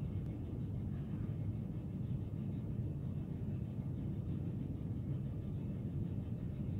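Steady low rumble of room background noise, with no distinct knocks or clanks.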